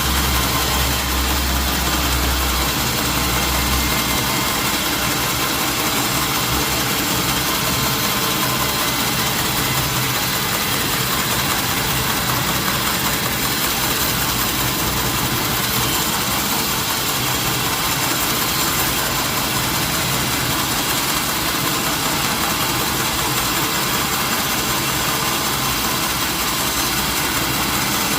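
Engine-driven sawmill machinery running steadily with a constant mechanical drone and hiss, with a deeper hum in the first few seconds.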